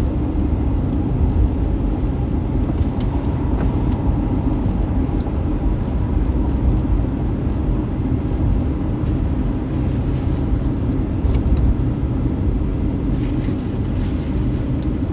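Steady road and engine rumble heard from inside a moving car.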